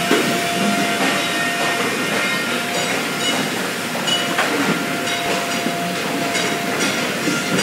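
Steady machinery din of a barrel cooperage shop floor, with steady metallic ringing tones and a few brief clatters over it.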